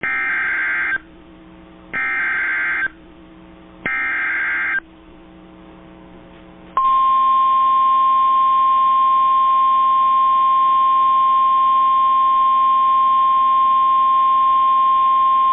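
Emergency Alert System SAME header: three one-second bursts of buzzy digital data tones, each about a second apart. About seven seconds in comes the NOAA Weather Radio 1050 Hz warning alarm, one steady high tone held for about nine seconds, signalling a tornado warning.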